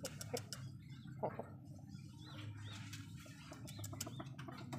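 Birds in a chicken yard: several short high chirps and a stronger call about a second in, among scattered light clicks and taps, over a low steady hum.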